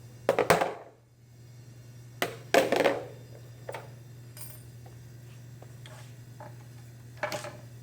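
Metal parts and tools clanking and clattering as they are handled and set down on a workbench: a few sharp clatters near the start, a louder pair about two to three seconds in and another near the end, with light ticks between, over a steady low electrical hum.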